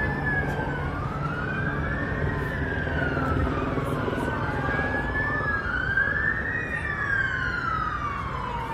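Several police car sirens wailing at once, their slow rising and falling tones overlapping and out of step, over a steady low rumble.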